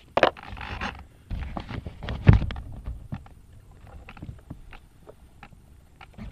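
Handling noise picked up by a model plane's onboard camera microphone as the plane is lifted and moved. It is rubbing and scraping with scattered clicks and knocks, and the loudest knock comes a little over two seconds in. No motor is running.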